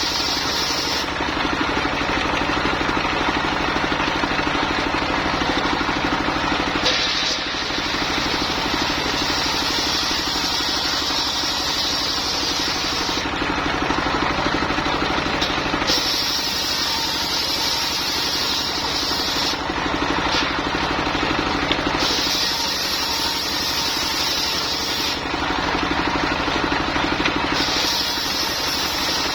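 Engine-driven mobile circular sawmill running steadily while sawing lamtoro wood, with a higher-pitched whine that comes and goes every few seconds.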